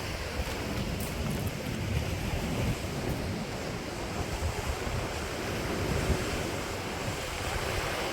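Sea surf washing steadily, with wind buffeting the microphone in gusts.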